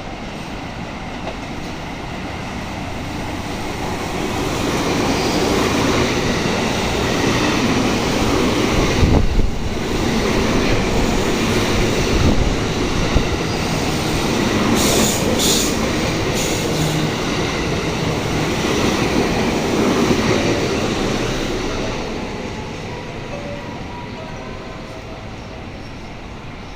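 An electric passenger train passing close by on the JR Kyoto Line: its running and wheel noise builds over several seconds, stays loud for about fifteen seconds, then fades away. A brief high wheel squeal comes about halfway through.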